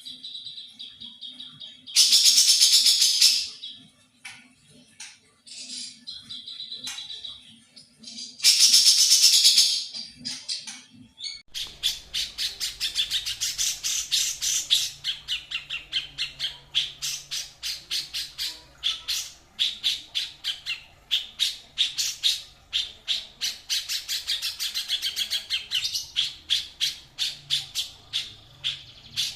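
Songbird song from a birdsong training recording. First come high held whistles and two loud, dense song phrases. About a third of the way in, a different recording takes over: a fast chatter of sharp repeated notes, about four or five a second.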